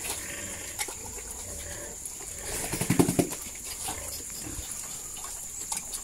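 A group of pigs eating wet feed soaked in whey from a trough, with wet, noisy mouthfuls that come in a quick cluster, loudest about three seconds in.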